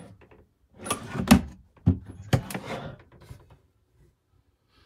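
Wooden cupboard doors of a caravan being handled: a few knocks and clatters about one to three seconds in.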